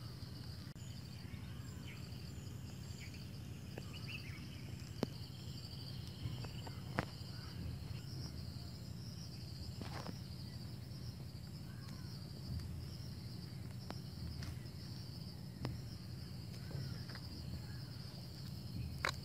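Steady outdoor insect chorus of crickets chirring, over a low steady background hum. A few sharp, separate clicks stand out now and then.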